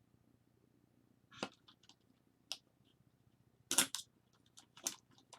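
Irregular sharp clicks and taps of a small screwdriver and small lens parts being handled during disassembly of a camera lens, the loudest near the end.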